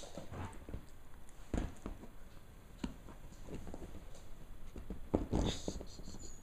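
Rustling of clothing and scattered soft bumps as a black Labrador puppy is held on a lap and shifts about. A louder cluster of bumps comes about five seconds in.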